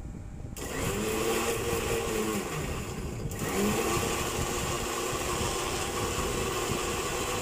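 Electric mixer grinder (mixie) grinding Marie biscuits with milk and sugar. The motor starts about half a second in, stops briefly near three seconds, then runs again steadily.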